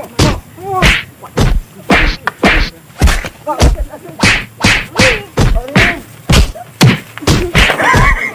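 A rapid run of punches and slaps in a brawl, sharp hits landing about three a second, with short shouts and grunts between them.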